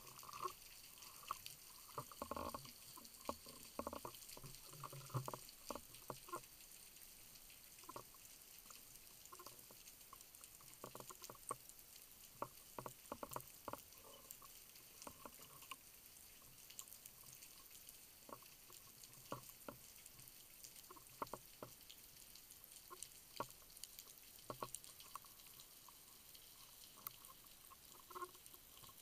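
Faint underwater sound heard through a sealed camera housing during a dive: a steady hiss with scattered muffled clicks and small gurgles.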